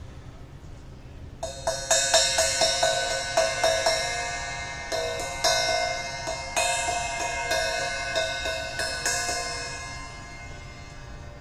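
A hand-held cymbal struck over and over in quick succession, starting about a second and a half in, each hit adding to a bright, shimmering ring. After the last strikes the ring carries on and slowly fades out near the end.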